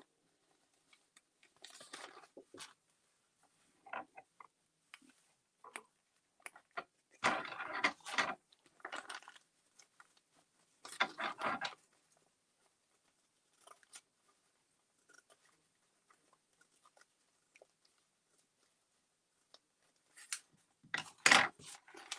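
A sheet of thin patterned paper handled and torn by hand to trim its edge: short, irregular bursts of crackly rustling and ripping, with the loudest near the end.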